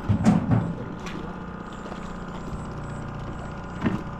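A small motor hums steadily on the fishing boat, with a quick cluster of loud thumps right at the start and one more thump near the end.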